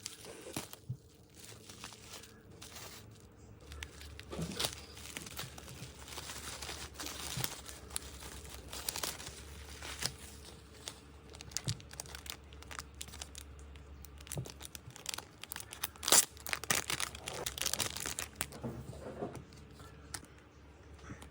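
Packaging being torn open and crinkled by hand, in irregular rustles and rips, with the sharpest tear about two-thirds of the way through.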